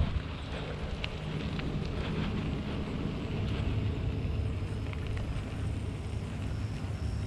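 Steady low rumble of wind and road noise on an action camera's microphone while riding a bicycle, with a few faint clicks.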